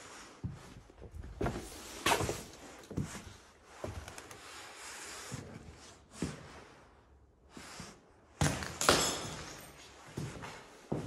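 Footsteps scuffing and crunching over plaster debris on a bare floor, an irregular run of short steps with louder scrapes about two seconds in and near the end.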